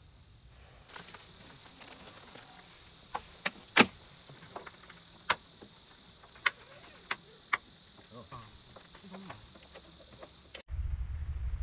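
Insects chirring steadily at a high pitch, with a scattered series of sharp clicks and taps as a mesh mosquito net is fitted over an SUV's open tailgate; the loudest click comes about four seconds in. About a second before the end it cuts suddenly to a low rumble of wind on the microphone.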